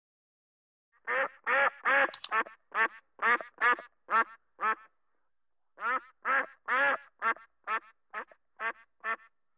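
Mallard ducks quacking: a run of about ten quacks starting about a second in, a short pause about halfway, then another run of about ten quacks.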